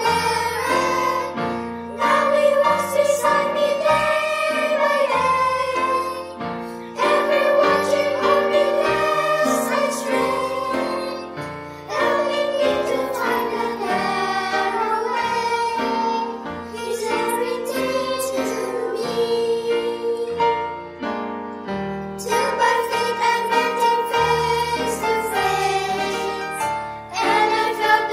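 Children singing a gospel song together over piano accompaniment, the voices carrying a slow sustained melody over held chords.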